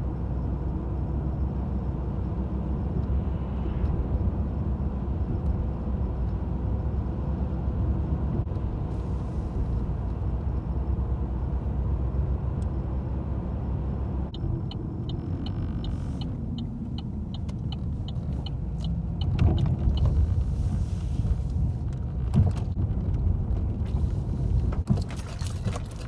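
Car cabin road noise while driving: a steady low rumble of engine and tyres on pavement. A little past halfway there is a short run of faint, evenly spaced high ticks, and a few louder bumps come later.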